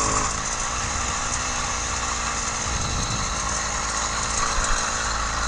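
80cc two-stroke motorized bicycle kit engine running during a ride. Its pitched note drops away in the first half second, then it runs on steadily.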